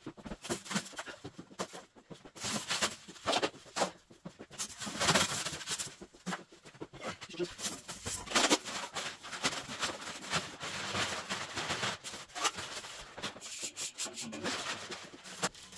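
Irregular rustling and rubbing in uneven bursts, with the loudest bursts about five and eight seconds in.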